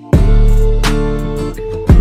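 Background music: strummed guitar chords, coming in loudly just after the start, with a strong strum about once a second over held notes.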